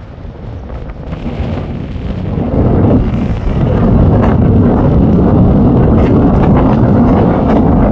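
Strong wind buffeting the microphone: a loud, low rumbling rush that builds about two and a half seconds in and stays heavy.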